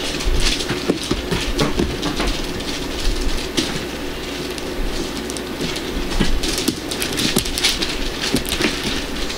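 Hands kneading and squishing a large lump of fluffy slime made from glue and shaving cream, giving irregular wet crackling and popping clicks, over a faint steady hum.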